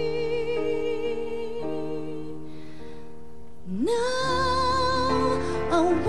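A woman singing a slow ballad live over sustained instrumental chords. She holds a long note with vibrato, lets it go for about a second, then slides up into a new, louder held note a little past halfway.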